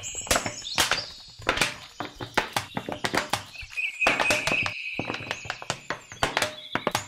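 Rapid, irregular clicks and taps, with a faint high squeaking tone running under them at times: a writing sound effect that accompanies text being written out. The taps thin out near the end.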